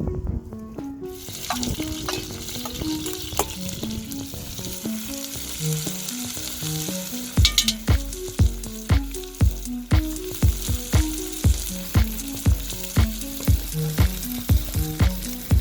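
Black Sea mussels sizzling and steaming in their own juice in a hot pan; the hiss starts about a second in and holds. Background music plays over it, with a steady beat of about two strikes a second coming in about halfway.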